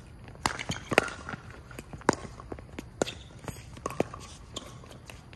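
Pickleball paddles striking a plastic ball in a rally, a string of sharp pops roughly once a second. Lighter scuffs of shoes move on the hard court between hits.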